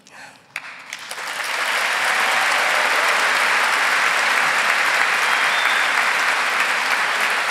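Audience applauding: a few scattered claps at first, swelling within about two seconds into steady applause.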